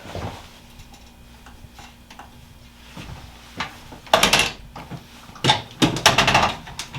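Handling noises on a chiropractic treatment table: a burst of crackly rustling and scraping about four seconds in, then a second cluster of rustles and scrapes a second later.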